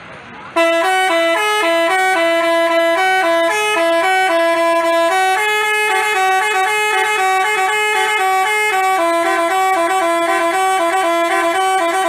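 Basuri telolet bus horn playing a melody of short, quickly stepping notes, starting about half a second in.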